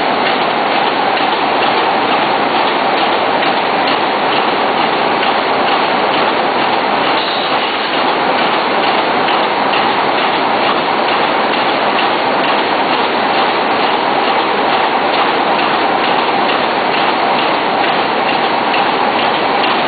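Spot welding machine welding steel wires onto the centre ring of a radial wire fan guard: a steady sputtering hiss of the welds with a rapid run of repeated clicks from the machine.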